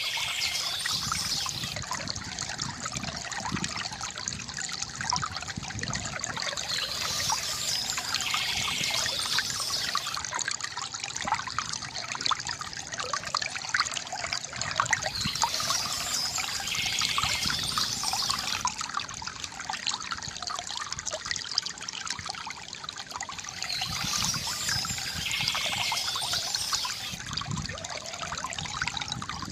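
Stream water trickling and splashing steadily.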